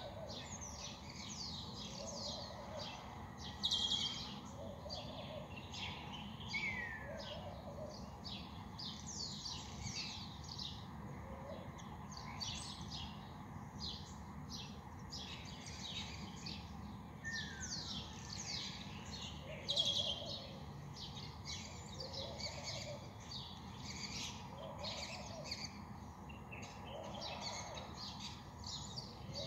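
Many small birds chirping at dawn: a dense, continuous chatter of short high calls, louder about 4 seconds in and again about 20 seconds in. Underneath, a lower call repeats every second or two, and a short falling whistle is heard twice.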